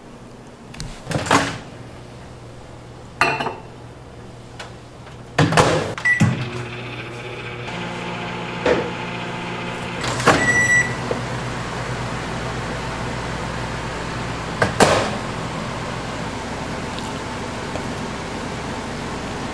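Kitchen work sounds: a few scattered knocks and clatters, two short electronic beeps, then a steady appliance hum that starts partway through and keeps running.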